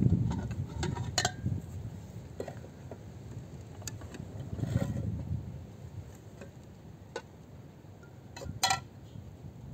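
Steel cooking pot and its metal lid being handled on a wooden table, giving a few separate sharp clinks, the last a quick double clink near the end. Low wind rumble on the microphone underneath.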